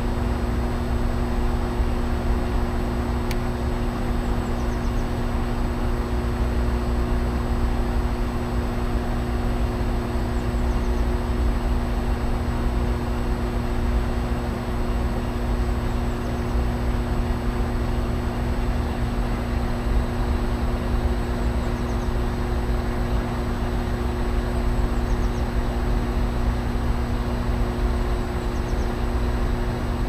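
Vaillant aroTherm Plus 7 kW air-source heat pump outdoor unit running close up: a steady machine hum from its compressor and fan, with two constant low tones over a low rumble of air.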